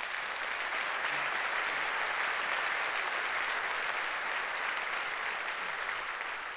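Audience applauding, a steady run of clapping that eases off slightly near the end.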